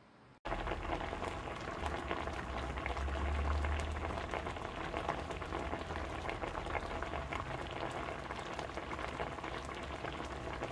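Food sizzling in a frying pan: a dense, steady crackle of many small pops that starts abruptly about half a second in.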